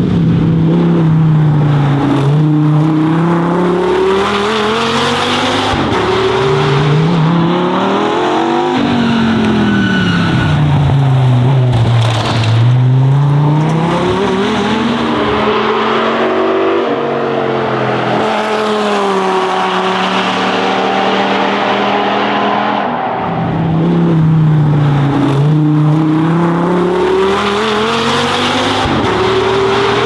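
Dodge Viper ACR Extreme's 8.4-litre V10 at full race pace. The engine note climbs and drops again and again as the car accelerates hard, shifts and slows for corners, with a few deep dips where it brakes and then pulls away again.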